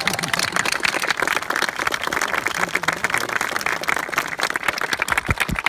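Crowd applauding: dense, continuous clapping from many hands.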